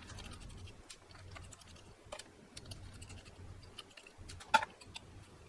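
Light, scattered clicks and taps of a GPU cooler's fan being handled and detached from its heatsink, with one sharper click about four and a half seconds in.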